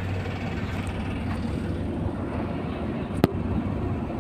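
Tugboat's diesel engines running steadily, a low, even hum heard on deck, with a single sharp knock a little over three seconds in.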